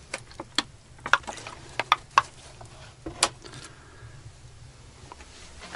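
Light clicks and knocks from things being handled on a wooden table, about eight of them close together in the first three and a half seconds, then quieter, over a faint low steady hum.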